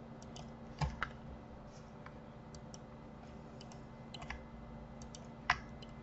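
Scattered clicks of a computer mouse and keyboard keys: a handful of sharp single clicks, a pair about a second in and more near four and five and a half seconds, over a faint steady hum.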